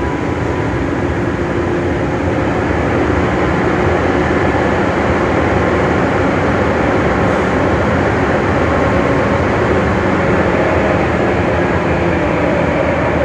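Tsurumai Line subway train running at speed through a tunnel, heard from inside the front car: a loud, steady rumble of wheels on rails, with faint steady tones in it.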